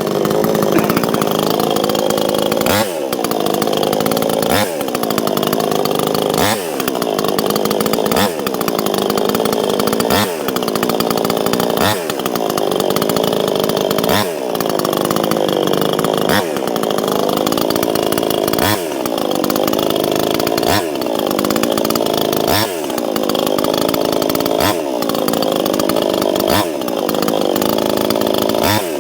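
Proyama 68cc two-stroke chainsaw running, its engine note dipping and recovering about every two seconds, each dip opening with a brief sharp sound.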